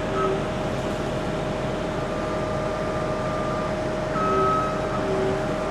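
Case TR320 compact track loader running steadily under the operator, its engine noise carrying a constant whine. Short higher-pitched tones come and go a few times over it.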